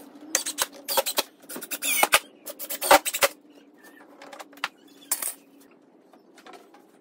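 Clicks, knocks and clatter of tools handled on a wooden workbench as a cordless drill is set down and a steel bar clamp is loosened and lifted off a pine frame, with a short scrape about five seconds in.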